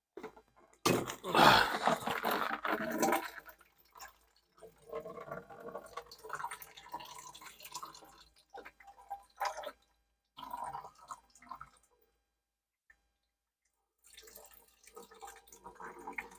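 Water gushing and splashing out of a disconnected copper water supply pipe, loudest about a second in, then spilling and dripping unevenly.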